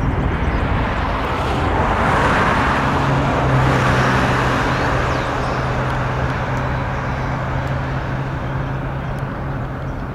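Boeing KC-135E Stratotanker's four TF33 turbofan engines at takeoff power: a broad jet roar that swells to its loudest as the aircraft lifts off, then slowly fades as it climbs away, with a steady low hum underneath.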